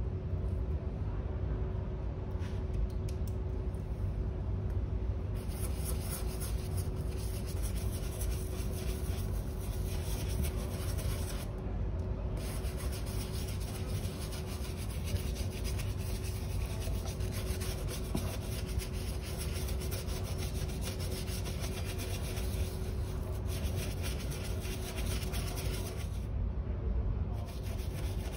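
A small shoe brush scrubbing leather with a lathering shoe cleaner: rapid, steady, scratchy rubbing that pauses briefly twice.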